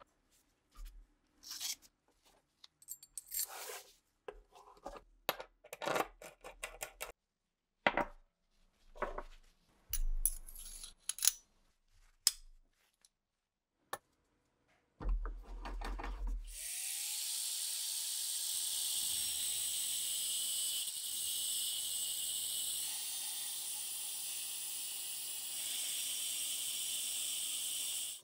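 Small steel rifle parts clinking and knocking as they are handled and set down. About halfway, a power grinder spins up with a short rising whine and then grinds steadily against steel.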